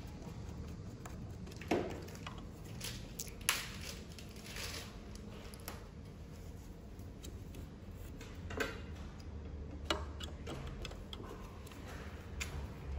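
Hex screwdriver tightening small machine screws through a propeller hub into a drone motor: light scattered clicks and scrapes of the metal tool and parts, with a few sharper ticks.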